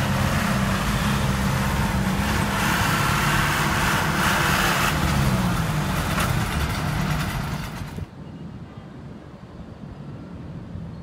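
Engine and road noise of Manila street traffic heard through an open vehicle window, with a steady engine drone whose pitch drifts slightly. About 8 seconds in it cuts abruptly to much quieter city ambience.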